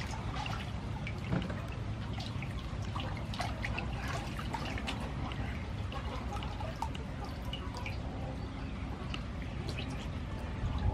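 Raw pork belly being washed by hand in a stainless steel bowl of water: small irregular splashes, with water dripping and trickling off the meat as it is lifted out.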